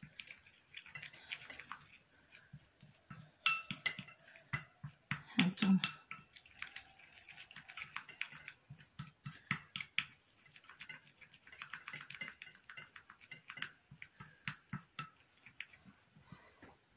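Spoon stirring a thick flour-and-vinegar paste in a small ceramic bowl, making quick, irregular clicks and scrapes against the bowl as the mixture is worked into a cream.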